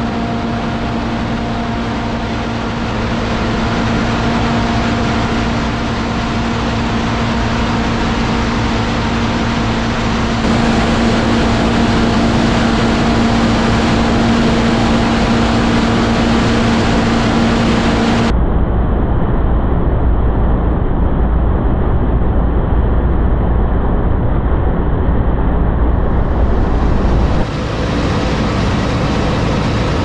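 New Holland combine harvester running under load while picking up windrowed barley, giving a steady engine and machinery drone. The sound changes abruptly about ten and eighteen seconds in, with a heavy low rumble in the later part.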